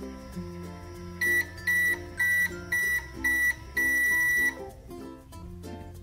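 Toy microwave's electronic timer beeping: five short high beeps, then one longer beep, signalling the end of its cooking cycle, over background music.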